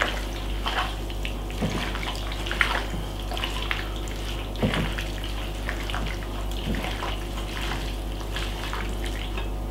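Raw chicken wings being massaged by a gloved hand in wet jerk marinade in a glass bowl: irregular squelches and squishes.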